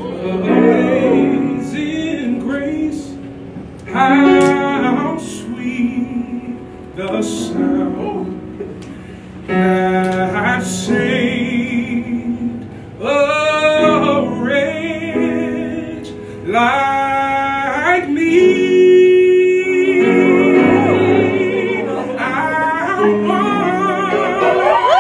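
A man sings solo with strong vibrato to grand piano accompaniment, in phrases separated by short breaths.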